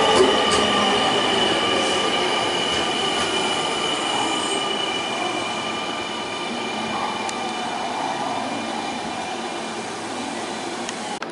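Semboku 5000 series electric commuter train running away along the platform, its wheels squealing in a few steady high tones over the rumble of the running gear, fading steadily as it recedes.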